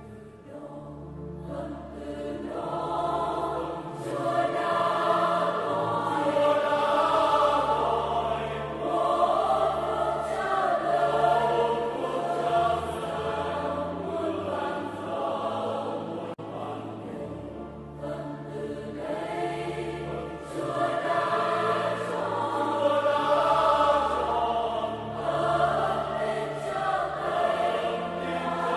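Background choral music: a choir singing over sustained low notes, fading in over the first few seconds.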